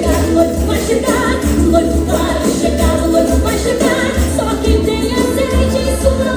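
Group of voices singing a gospel song in chorus over a steady beat of pandeiros (Brazilian frame drums).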